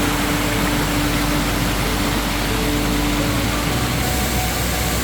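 Waterfall rushing steadily, with a faint low hum over the water that fades out about three seconds in.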